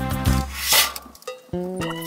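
Music from a Korg i30 arranger keyboard. A busy passage ends with a cymbal crash under a second in, then after a brief drop new held notes begin.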